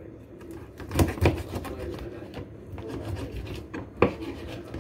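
Knife cutting a whole raw chicken in half on a plastic cutting board: rasping, crunching strokes through the carcass, with three sharp knocks, two about a second in and one near the end.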